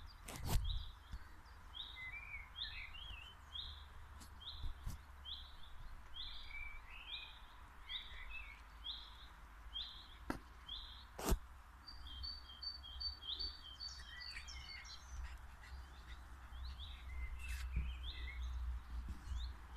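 Songbirds singing: one bird repeats a short high note about once a second through the first half, with other birds chirping around it and a rapid high twittering in the second half. A low rumble of wind on the microphone runs underneath, with a few sharp handling clicks, the loudest about half a second and about eleven seconds in.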